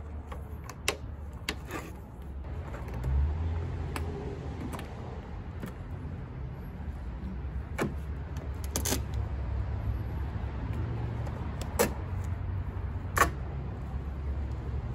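Scattered sharp plastic clicks and snaps from the trunk-lid liner and its push-in trim clips being pressed back into place, about seven over the stretch, over a steady low hum.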